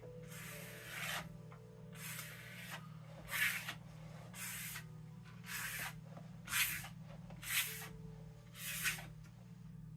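A series of short rubbing or swishing strokes, about one a second, over a steady low hum.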